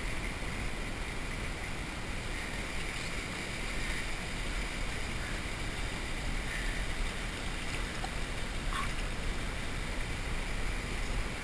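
River water running steadily, an even rushing hiss.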